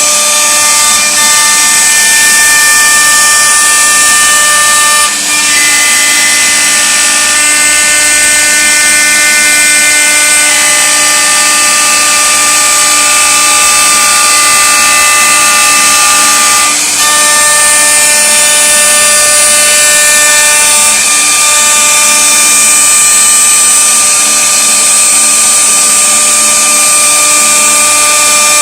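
CNC router spindle running and cutting wood, a steady high-pitched whine with several held tones over a hissing cutting noise, dipping briefly about 5 seconds and 17 seconds in.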